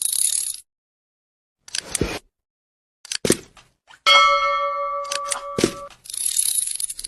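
Sparse percussive sounds: a bright hiss, a few thumps and clicks, and a bell-like ding that rings for nearly two seconds about four seconds in, with dead silence between the hits.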